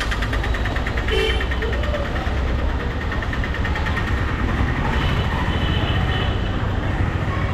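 Bus engine running close by, a steady low rumble, with road traffic around it.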